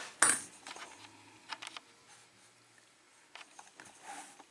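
A few light clicks and taps from handling small tools at a bench: one sharper click just after the start, a small cluster about a second and a half in, and a few more near the end.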